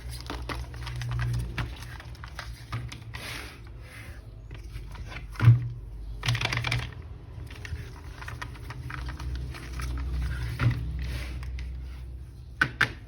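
Hands handling plastic toy packaging: scattered clicks and taps with a few short bursts of plastic crinkling, over a steady low hum.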